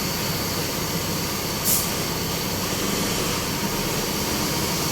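Steady low drone and hiss of a bus's engine running, with a brief sharp tick about two seconds in.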